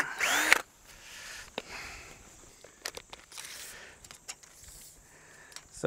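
Cordless drill boring a brace-pin hole into a wooden fence post, its motor pitch wavering under load, stopping about half a second in. After that only faint scattered clicks and taps.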